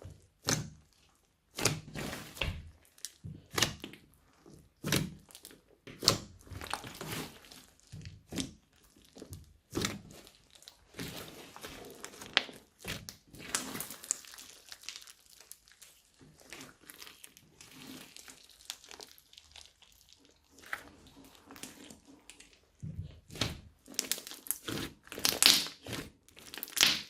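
Slime being squished, stretched and pressed by hand, making irregular sticky crackles, snaps and pops.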